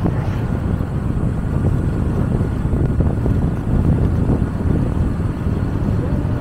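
Motorcycle riding along, heard as a steady low rumble of wind buffeting the microphone mixed with the bike's running and road noise.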